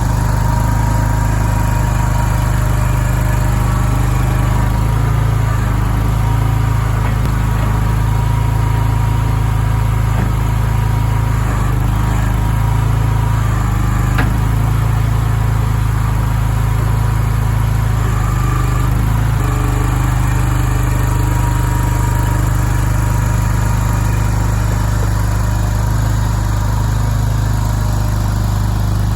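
Skid steer engine running steadily, its note shifting a few times as it works.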